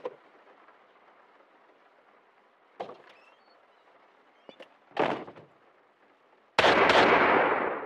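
A door's latch clicking and the door knocking as it is opened, then two gunshots in quick succession, the loudest sound, with a long echoing tail that fades out.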